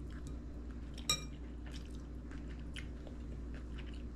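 Quiet eating and handling sounds: small clicks over a low steady hum, with one ringing clink, like cutlery on a dish, about a second in.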